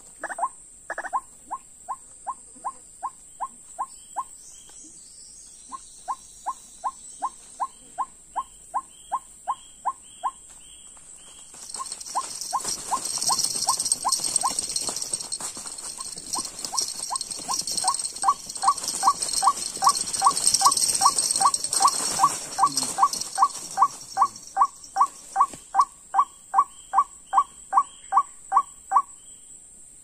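White-breasted waterhen calls: short, clipped, rising notes repeated about three times a second in long, very even runs, with a few brief pauses. A steady high hiss swells through the middle.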